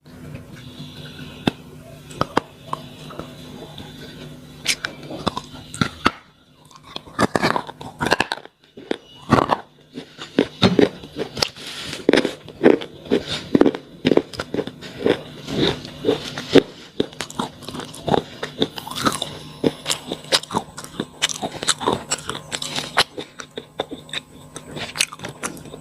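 Slate pencils being bitten and chewed close to the microphone: sharp crunches and crackles, coming about twice a second through the middle, over a faint steady hum.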